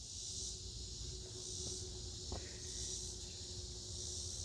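Insect chorus: a high, steady buzzing that swells and fades about every second and a half, with a faint click a little past two seconds in.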